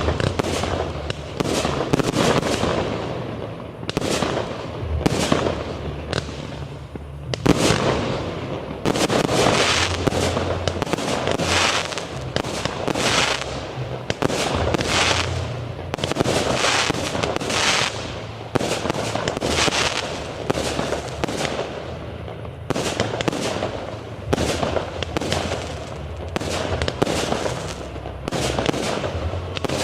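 Aerial fireworks display: a continuous barrage of shell bursts and crackles, one to three bangs a second, each with an echoing tail.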